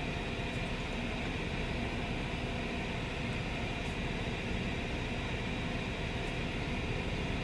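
Steady, even hiss of car-cabin background noise, with nothing standing out from it.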